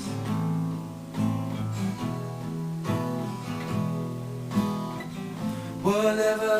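Instrumental passage of a song: acoustic guitar strumming chords, with fresh strokes roughly once a second.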